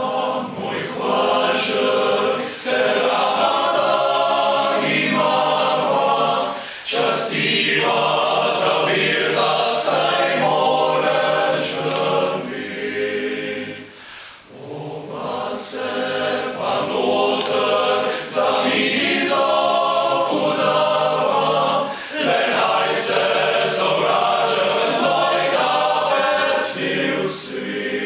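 Male voice choir singing a Slovenian song a cappella, with a short dip in level about halfway before the next phrase.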